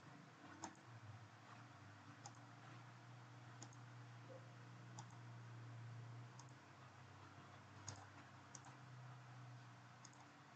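Near silence with about ten faint, scattered clicks of a computer mouse, over a faint steady low hum.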